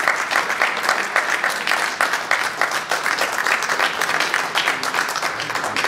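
Audience applauding, a dense, steady clapping that starts to thin out near the end.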